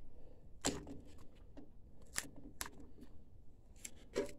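Adhesive tape being peeled off a cable bundle inside a printer: a handful of short, faint crackles and clicks.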